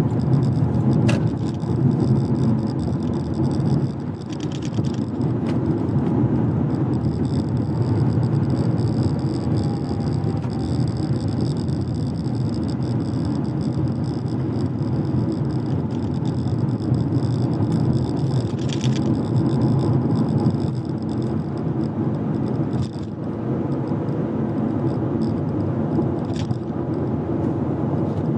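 Steady road noise of a car being driven, a low drone of tyres and engine, with a few brief clicks.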